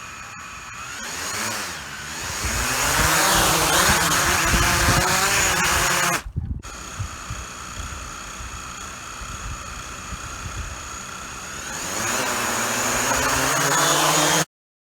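A DJI Mavic Pro quadcopter's motors and propellers spinning up to a loud whirring buzz, with the pitch dipping and then rising. It drops out briefly about six seconds in, then runs steadily and rises again before cutting off abruptly near the end.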